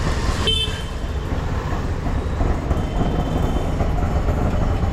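Autorickshaw running along a wet street, heard from inside its open cabin: a steady low engine and road rumble with tyre and traffic noise over it. A brief high tone sounds about half a second in.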